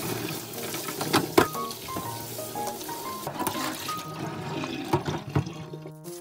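Tap water running and splashing into a plastic bowl in a stainless steel sink as cucumbers are rinsed by hand, with a few sharp knocks, the loudest about a second and a half in. Near the end the bowl is tipped and its water pours out into the sink; the water stops abruptly just before the end.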